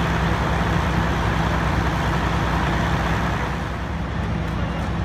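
Fire truck engines running steadily: a continuous low rumble under a hiss. The upper hiss drops away about three and a half seconds in, while the low rumble carries on.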